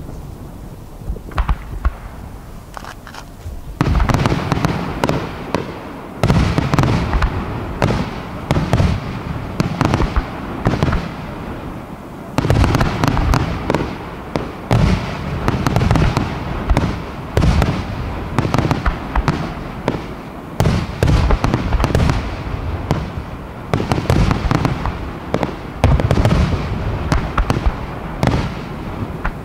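Aerial firework shells bursting in quick succession. A few scattered pops come first, then from about four seconds in a dense barrage of overlapping bursts runs on without a break.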